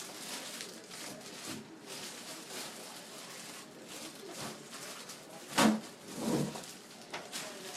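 Groceries and packaging rustling and knocking as a baby handles them at the refrigerator, with two short baby vocal sounds, like coos or grunts, about five and a half and six seconds in.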